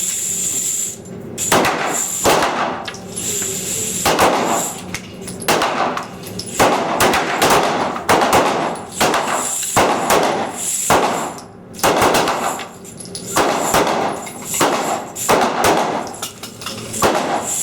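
Pistol shots from several shooters on a firing line, fired at an irregular, unhurried pace: well over a dozen sharp cracks, about one to two a second, some coming close together.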